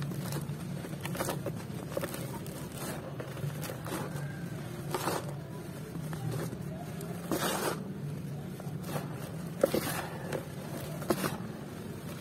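Hands squeezing and crumbling dry lumps of white cement into powder, giving soft, crunchy, dusty crumbles at irregular moments, with two sharper crunches near the end. A steady low hum runs underneath.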